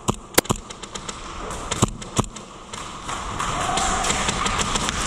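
A few sharp, separate clicks and knocks of an airsoft close-quarters game, four of them in the first two and a half seconds, the loudest about half a second in; then a steady rustle of gear and movement against the helmet-mounted camera.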